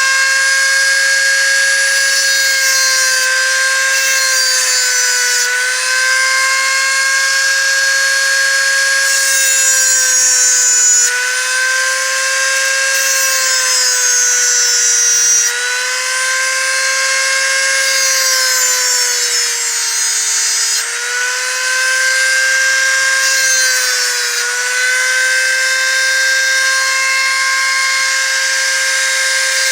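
Small handheld electric drill running steadily with a high whine while drilling holes in a thin steel lock-pick blank; its pitch sags briefly about five times as the bit bears into the metal, most deeply about two-thirds of the way through.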